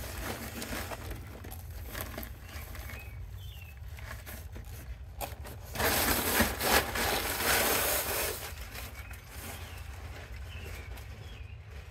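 A phone or camera being handled, with about two seconds of rustling and rubbing on the microphone a little past the middle, over a low steady outdoor rumble.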